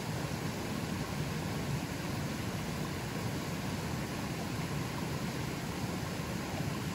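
River flowing with a fairly strong current: a steady, even rush of water, fullest in the low range.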